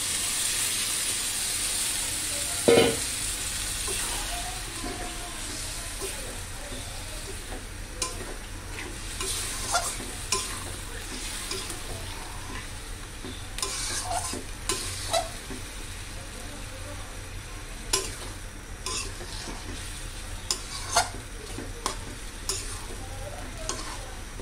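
Mutton and masala sizzling in a metal kadai as spice-mixed water is poured in, the hiss strongest in the first few seconds. Then a metal spatula scrapes and clanks against the pan as the mutton is stirred, over a steady frying sizzle, with one loud clank about three seconds in.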